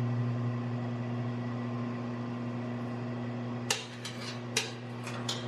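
Steady machine hum in a forge shop, with three sharp metal-on-metal clinks of steel tools in the last two seconds as the drift is set into the hammer eye.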